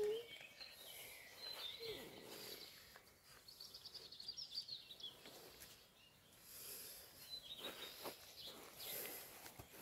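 Quiet outdoor background with birds chirping, including a quick high trill about four seconds in. A short squeak right at the start is the loudest sound.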